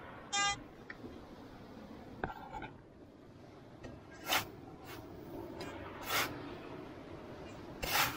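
A metal detector's short beep over a buried target, then a steel shovel digging into sand and dry grass: three scraping strokes about two seconds apart, the last the loudest.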